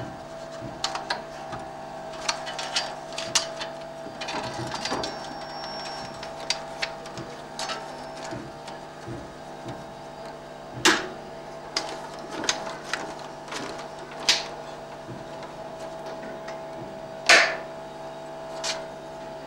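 Steady hum of projection-room machinery with a fixed whine, under repeated metallic clicks and clanks as a film projector's metal reel magazine and film reel are handled and the film is threaded. Two louder metal knocks come a little past halfway and near the end.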